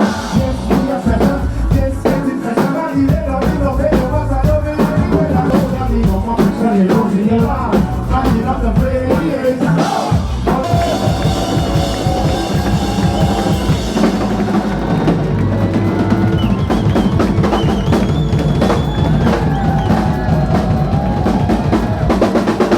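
Live band playing loudly, with a driving drum kit beat and bass under horn lines that include trombone. About ten seconds in, the horns move to long held notes over the beat.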